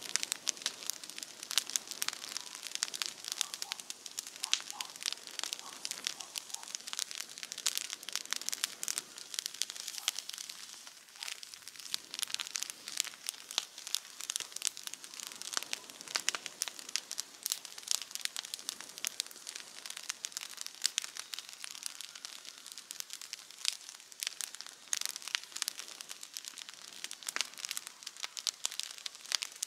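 Campfire crackling: a dense, uneven run of small sharp pops and snaps.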